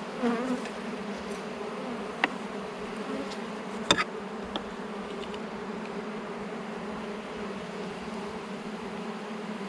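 Honeybee colony buzzing steadily from an open hive as a low, even hum. Two sharp clicks come about two and four seconds in, the second the loudest sound.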